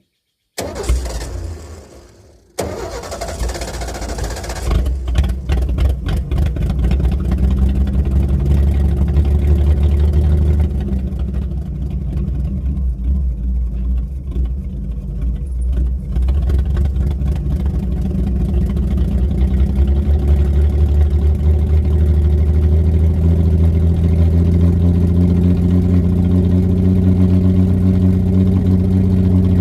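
Ford 300 (4.9 L) inline-six engine cranking briefly, catching about two and a half seconds in, then running with uneven firing from a misfire.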